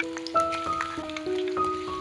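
Gentle keyboard background music with held notes, over the steady sizzle and small crackles of eggs frying in oil in a pan.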